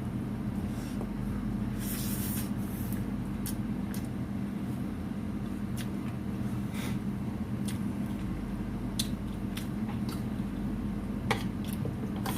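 Steady low hum, with a few faint, light clicks of cutlery on a plate during eating.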